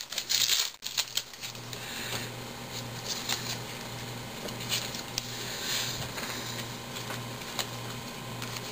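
Foil baseball card pack crinkling, then a stack of trading cards handled and flicked through one by one with light papery clicks. The crinkling and clicking are loudest in the first second.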